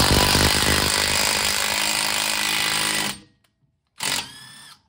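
Cordless impact wrench hammering for about three seconds as it draws a long ARP wheel stud into the Subaru BRZ's rear hub, then stopping abruptly. About four seconds in, a short burst from the tool is followed by a rising whine.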